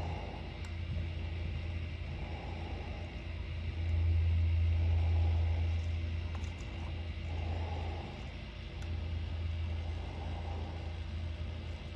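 A low, steady mechanical hum that swells louder for about two seconds in the middle.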